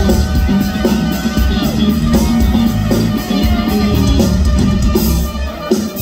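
Live band music led by a trumpet playing long held notes, each lasting a second or two and bending down at the end, over the band's bass and drums.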